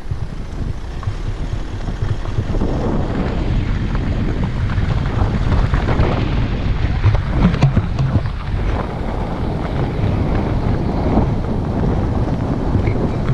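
Wind buffeting the microphone over a steady low rumble of travel, swelling a couple of seconds in and loudest around the middle.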